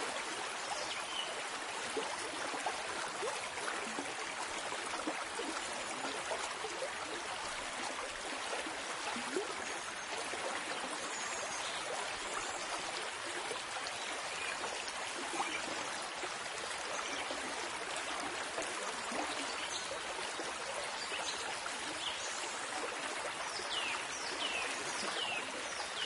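A flowing stream runs with a steady rush of water. A few short, falling bird chirps come in near the end.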